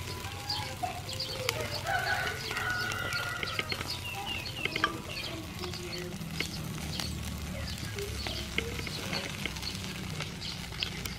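Octopus skewers crackling and sizzling over a charcoal grill, with scattered sharp pops, under frequent short clucking and chirping calls of birds, chickens by the sound.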